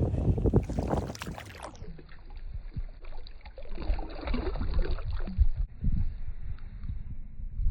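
Boat-on-the-water ambience: wind rumbling on the microphone with small water sounds and light knocks around the fishing boat.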